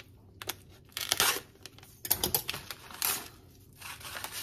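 A packet of dry onion soup mix being slit open with a knife and handled: a few short tearing, crinkling rustles with light clicks in between.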